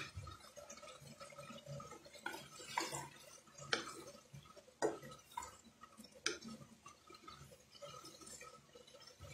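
Wooden spatula stirring chopped vegetables in a frying pan: irregular light knocks and scrapes against the pan, about one a second, over a faint hiss.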